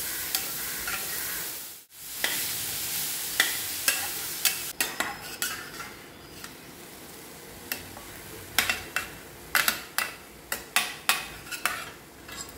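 Chopped plantain stem masala sizzling in a steel pan while a metal spoon stirs and scrapes it, with repeated sharp clicks of the spoon against the pan. The masala is just starting to catch on the pan bottom. The sound cuts out briefly about two seconds in, and the clicks come thickest near the end.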